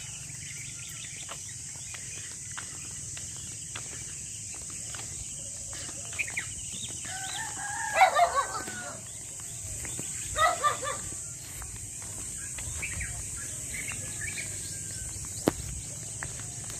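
Rooster crowing twice, a little past the middle, the first crow the longer and louder, with small birds chirping.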